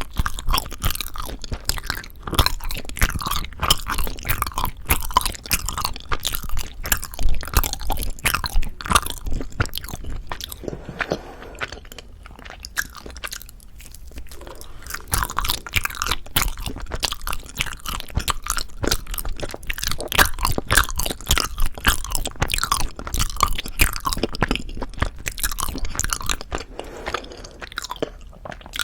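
Close-miked chewing of soft, sticky rice cake (tteok): continuous wet, clicking mouth sounds, with a brief quieter lull about halfway through.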